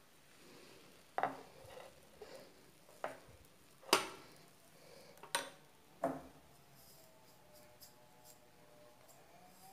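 A plastic spoon knocking and clinking against cookware as dosa batter is spooned onto a nonstick pan: about five sharp knocks, irregularly spaced, the loudest near the middle.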